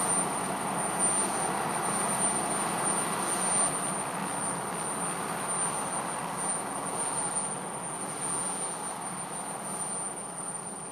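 Alouette II turbine helicopter running on the ground after landing, its engine and turning rotor making a steady rushing noise that slowly grows quieter.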